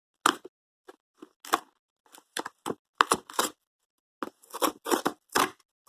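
Cardboard subscription box being torn open along its last side: a run of short, uneven tearing and crackling rips with brief pauses between them.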